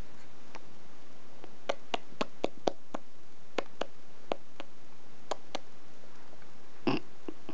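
Light, sharp clicks and taps close by, about a dozen scattered over three or four seconds, then one louder knock near the end.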